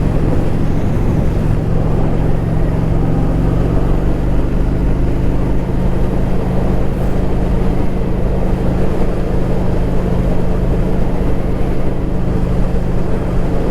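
Motorcycle engine running at a steady cruise: an even, unchanging hum over road and wind noise.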